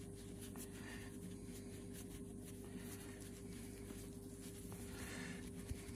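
Microfibre cloth rubbing over a small brass clock winder by hand, soft swishing strokes about once a second, over a steady low hum.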